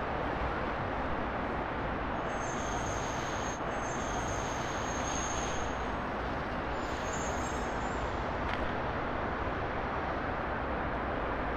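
Steady outdoor city background noise, like distant traffic, with a faint high whine that comes and goes in the middle.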